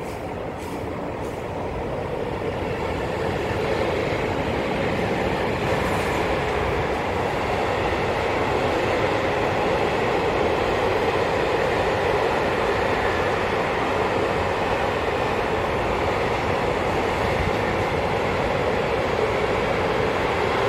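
A freight train of container flat wagons passing close by: the wheels' rolling noise on the rails grows louder over the first few seconds as the train arrives, then holds steady as the wagons roll past.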